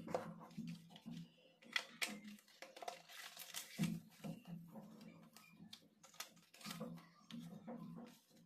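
Cardboard phone box and paper inserts being handled: short, irregular rustles, scrapes and light taps as the leaflets are lifted out and the box is turned over in the hands.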